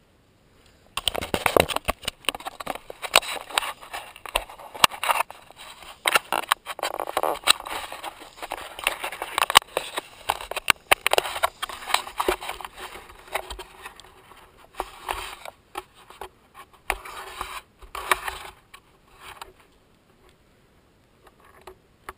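Helmet-mounted GoPro rattling and scraping in its case as a mountain bike jolts down a rocky dirt trail: a dense, irregular clatter of knocks that starts about a second in and dies away near the end.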